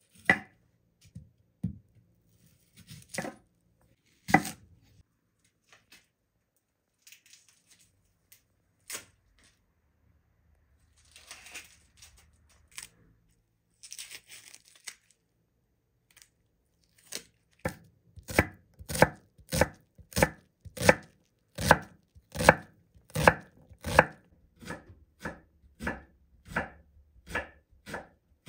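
Kitchen knife chopping an onion on a wooden cutting board, in a steady run of sharp strikes about two a second through the second half. Before that come a few single cuts as the onion is halved, and the crackle of its papery skin being peeled off.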